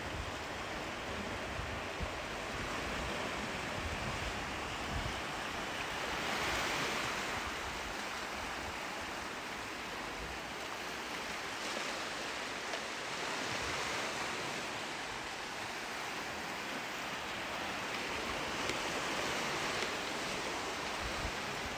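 Ocean surf washing onto the beach in a steady wash of noise that swells about every six or seven seconds as each wave breaks, with some wind buffeting the microphone in the first few seconds.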